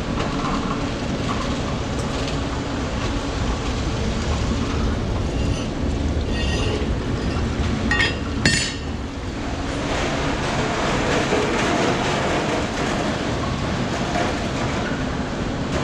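Steady mechanical rumble and rattle, with two sharp metallic clinks about eight seconds in.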